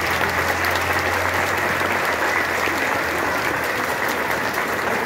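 A large crowd applauding, steady dense clapping that holds at an even level throughout.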